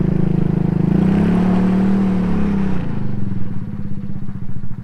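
Engine of a 110cc quad (ATV) revving up and down, then dropping to a lower, steadier run about three seconds in.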